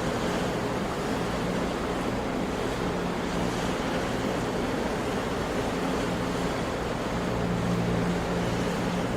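Sea surf washing in a steady rush, with no single breaker standing out. A faint low hum runs underneath.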